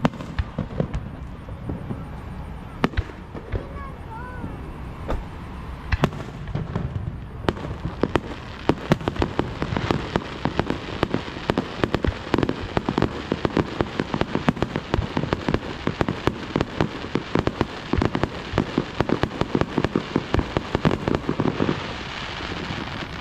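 Fireworks going off. There are scattered single bangs at first; from about eight seconds in comes a dense, rapid crackle of many pops a second, which thins out near the end.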